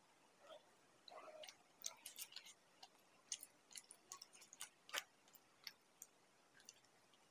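Faint chewing and a scatter of sharp little clicks and crackles as the crisp fried crust of a samosa is broken apart with fingers, the loudest crack about five seconds in.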